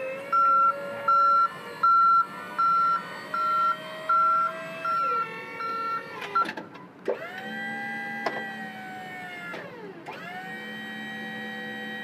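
A warning beeper sounds about once every three-quarters of a second over a motor whine as the truck's powered rear demonstration mast deploys. A motor then runs twice more, about two to three seconds each time, dropping in pitch as it stops, while the frame and its support legs set up.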